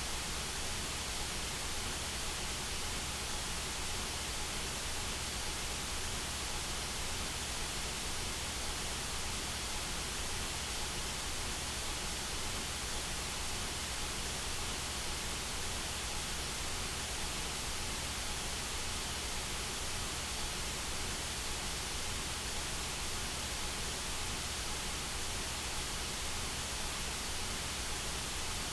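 Synthetic white noise: a steady, even hiss spread across the whole range, unchanging throughout, meant for tinnitus masking and habituation.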